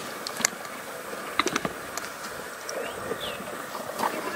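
Outdoor ambience as horses walk through grassy bush: a few scattered soft clicks and knocks from hooves and tack over a steady faint hiss, with two short whistled glides about three seconds in.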